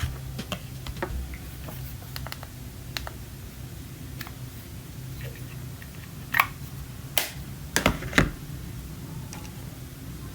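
Small plastic camera accessories and parts being handled: scattered light clicks and taps, with a few louder sharp clicks about six to eight seconds in, over a low steady hum.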